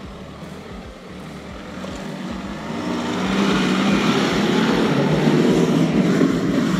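Nissan Navara PRO-4X ute's twin-turbo four-cylinder diesel running under load as it drives through soft sand. It grows louder from about two seconds in and stays loud as the ute climbs away.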